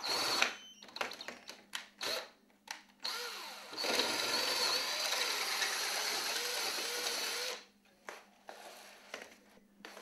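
Cordless drill boring a hole out to 9 mm in a sliding door's aluminium track. It runs in a few short bursts, then steadily from about three seconds in, its pitch wavering under load, and stops a little over two seconds before the end.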